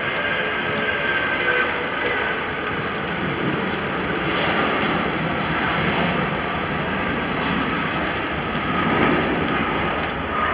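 Boeing 757's twin jet engines at takeoff thrust during the takeoff roll: a steady, loud rushing roar with a whine that falls slightly in pitch as the aircraft passes.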